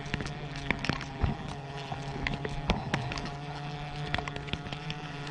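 Bees buzzing in a steady low hum, with frequent sharp clicks and knocks over it.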